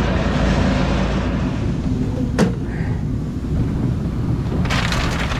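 Tractor engine running steadily under rushing wind noise. A single sharp knock comes about two and a half seconds in, and a burst of rushing noise starts near the end.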